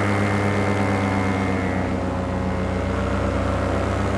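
Blackhawk 172 paramotor's two-stroke engine and propeller running steadily in flight.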